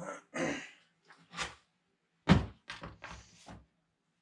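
Knocks and thunks of a welding helmet's hard shell being handled: several sharp knocks, the loudest a little over two seconds in, followed by a quick run of smaller ones.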